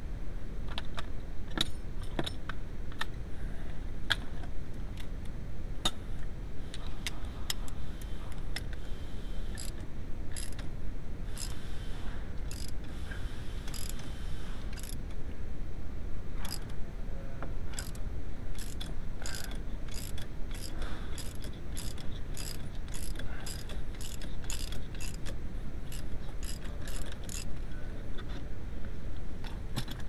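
Ratchet wrench clicking as it turns the forcing screw of a puller on a VW Passat B4 steering column. The clicks come scattered at first and then in a steadier run of about two a second in the second half, over a low steady rumble.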